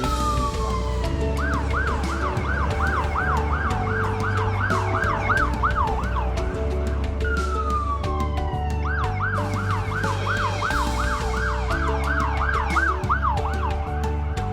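Electronic fire engine siren: a falling wail, then a rapid warble at about three cycles a second, the cycle starting over about halfway through. Steady low tones and a regular beat run underneath.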